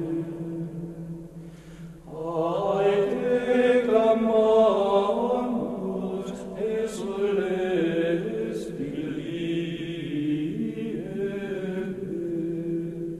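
Gregorian chant: voices singing a slow, sustained melody. They break off briefly about two seconds in and then come back in.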